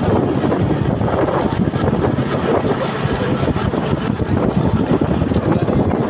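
Loud, steady wind rumble buffeting the microphone.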